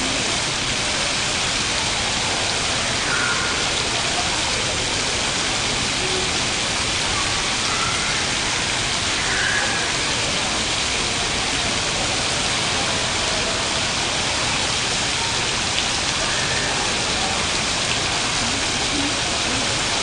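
Water fountain's curtain of streams falling from overhead nozzles and splashing down, a steady, even hiss of falling water.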